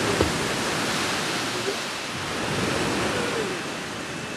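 Small waves washing and breaking on a sandy shore, with wind buffeting the microphone.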